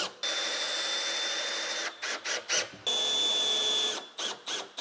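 Milwaukee cordless installation driver driving screws to fasten kitchen cabinets. It runs steadily with a high whine for about a second and a half, gives a few short bursts, then runs steadily again for about a second, with more short bursts around the runs.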